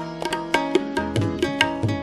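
Instrumental ghazal passage: tabla played at about four strokes a second, with a few low bending strokes from the bass drum, over sustained harmonium chords and acoustic guitar.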